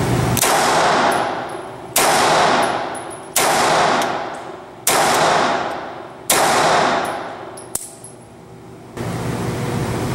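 Savage Model 1907 .32 ACP pistol fired five times, about one shot every second and a half. Each report echoes and dies away in the concrete indoor range. A small click follows shortly after the last shot.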